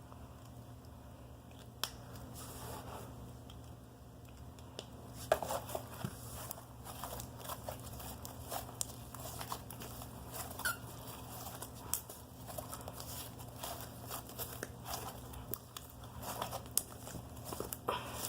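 Slime being squeezed and worked by hand, with many short, irregular clicks and crackles starting about five seconds in.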